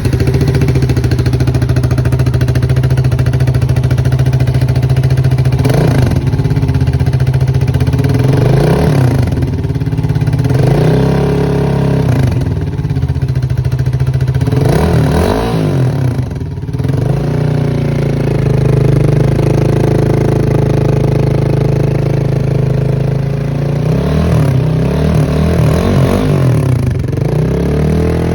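Yamaha Fazer 250's single-cylinder engine running through an aftermarket Mexx exhaust pipe. It idles steadily and is revved in short throttle blips, each rising and falling in pitch, about five times through the middle. A quicker run of revs comes near the end.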